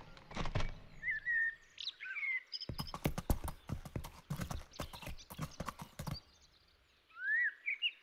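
Iberian ibex hooves clicking and knocking on stones as the animals walk over rocky ground, in two runs of quick, irregular steps. A small bird chirps a few times between them and once more near the end.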